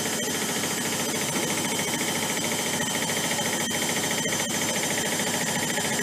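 Zanussi Electrolux 6 kg front-loading washing machine spinning its drum at speed: a steady machine whine with a fast, even rattle of vibration.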